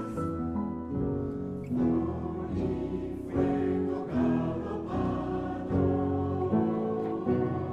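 Mixed choir singing with an instrumental ensemble of pianos, guitar and cello, new chords struck in a steady pulse a little more than once a second.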